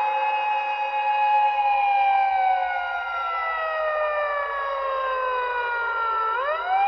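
A siren wailing: its pitch falls slowly for about six seconds, then sweeps quickly back up near the end.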